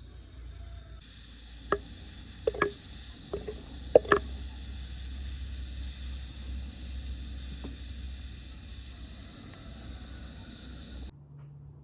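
A steady high hiss with several short metallic clinks, as of a utensil against a pot, between about two and four seconds in. The sound cuts off abruptly near the end.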